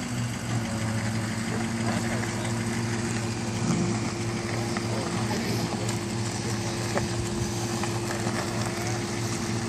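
Tow truck's engine running steadily while its winch drags a wrecked car in on cables, a constant even hum.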